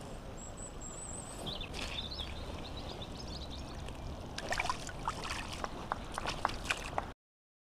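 Outdoor ambience with a steady low rumble and a few faint high chirps early on, then a quick run of sharp clicks and taps from about four and a half seconds in, before the sound cuts off abruptly.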